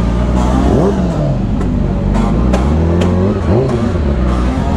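Sport motorcycle engines running in a crowd, with an engine revved up and back down twice, about a second in and again past three seconds.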